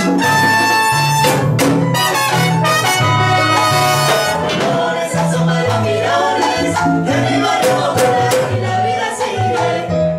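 A live band playing a champeta song: a bouncing bass line and sustained melody lines over timbale, cowbell and drum-kit percussion.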